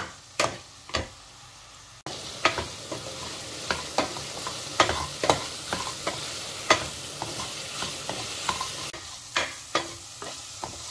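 Soya chunks frying in oil in a steel pan, stirred with a spatula. The spatula repeatedly scrapes and knocks against the pan while the oil sizzles, and the sizzle gets much louder from about two seconds in.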